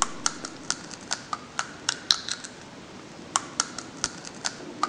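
Sunflower seeds being cracked open between the teeth: a quick, irregular run of sharp cracks, a few a second.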